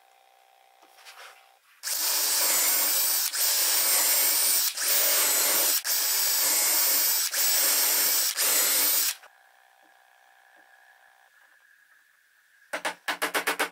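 Electric drill boring dowel holes into a pine board through a doweling jig. It runs with a high whine for about seven seconds, easing off briefly five times. Music starts near the end.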